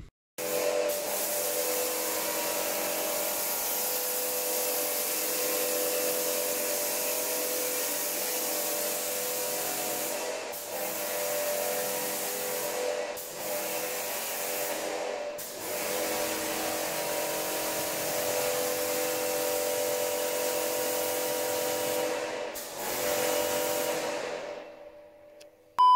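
Electric pressure washer running, a steady motor hum under the hiss of the water jet, cutting out briefly a few times and dying away near the end.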